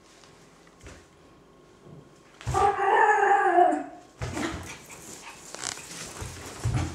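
Miniature (toy) pinscher giving one long, slightly falling howl-like cry about two and a half seconds in, in excited play. After it come scuffling and clicking noises as she dashes off the rug onto the tiled floor.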